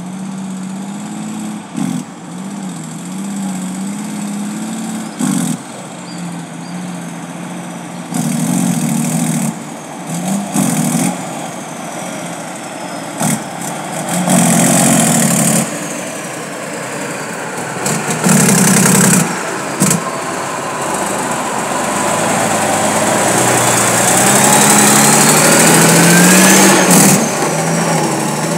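Diesel engine of a loaded cab-over dump truck running as the truck approaches and passes close by, its pitch wavering and growing louder toward the end, with a few brief louder bursts along the way.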